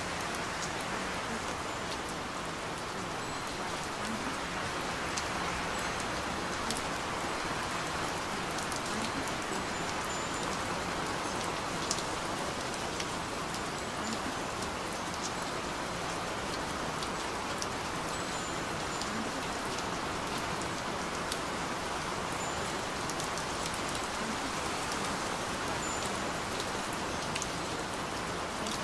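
Steady rain falling on a surface, an even hiss with scattered drop ticks.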